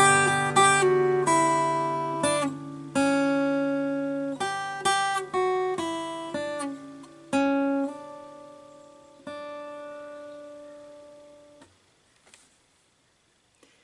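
Guitar played slowly and unevenly: about a dozen plucked notes and chords, each left to ring and die away over a low sustained bass note. The last chord rings for a couple of seconds and is damped suddenly near the end.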